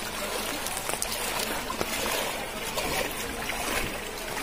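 Legs wading through shin-deep floodwater, the water sloshing and splashing irregularly with each step.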